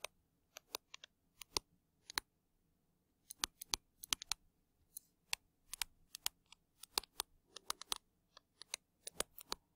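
Stylus tapping and clicking against a tablet surface as words are handwritten: faint, sharp, irregular clicks, a few a second, with a short pause about two seconds in.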